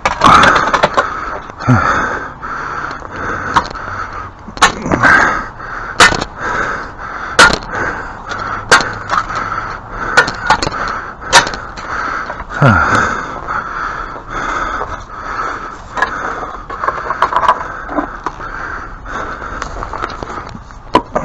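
Repeated sharp strikes of a hand tool hacking at a tree root in the ground, about one a second at an uneven pace, with scraping between blows.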